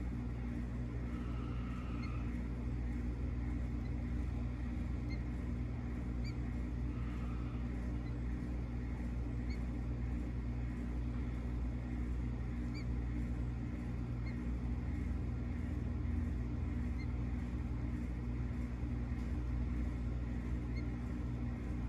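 A steady low mechanical hum, with two brief higher notes early on and faint short high chirps scattered throughout.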